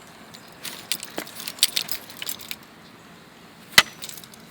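Homemade steel pallet-dismantling pry tool being worked under a pallet deck board to pry it loose: a run of short clicks and cracks for about two seconds, then one sharp knock near the end.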